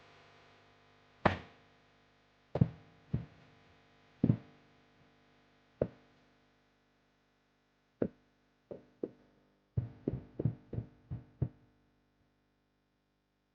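A series of sharp knocks at uneven intervals, a few seconds apart at first, then a quick run of about seven near the end. A faint sustained musical tone lies underneath and fades away.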